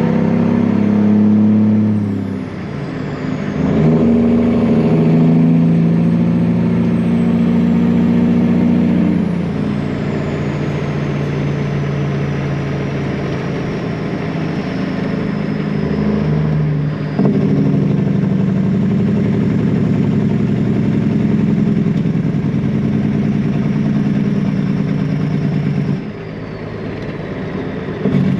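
Heavy diesel truck engine pulling under way, its note dropping and climbing again several times as it shifts through the gears.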